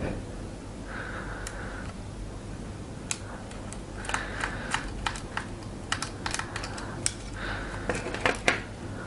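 Small screwdriver working the screws out of a plastic electronics housing, then the plastic case being handled: a soft scrape about a second in, then an irregular run of small sharp clicks and taps.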